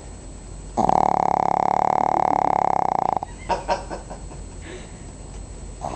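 A pug snoring: one long snore lasting about two and a half seconds with a fast flutter, then a few short clicks.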